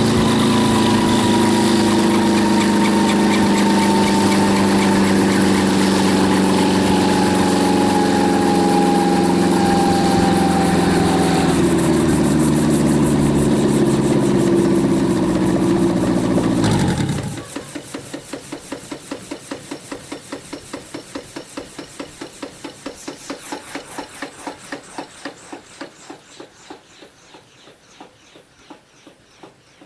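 Home-built helicopter's engine running steadily, its pitch sagging slightly, then shutting off suddenly about 17 seconds in. After that a rhythmic swishing slows and fades as the rotor coasts down.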